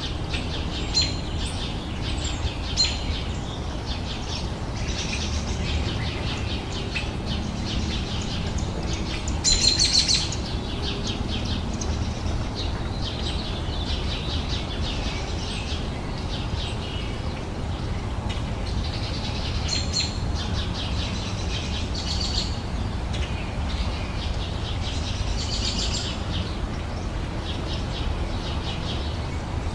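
Wild birds chirping and singing continuously in a garden, several short calls and trills overlapping, with a louder burst of song about ten seconds in, over a steady low background rumble.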